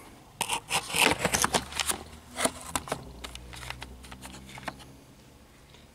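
Handling noise as a camera is fitted onto a tripod: a quick run of clicks, knocks and plastic rattles for the first few seconds, then only a few faint ticks.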